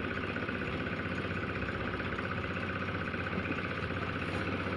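An engine running steadily at constant speed, with a fast even pulse and a steady hum.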